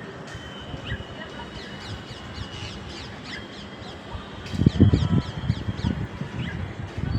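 Birds calling in the background with repeated quick falling chirps. From a little past halfway come loud, low, irregular crunching thuds close to the microphone: chewing of dry multani mitti clay.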